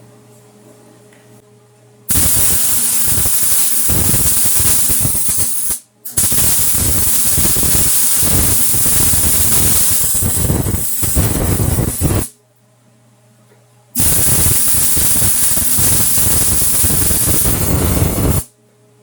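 Electric arc welding on 1/4-inch steel channel: three long runs of crackling, sizzling arc, the first about two seconds in and the last ending just before the end, with short pauses between. A steady low hum fills the pauses.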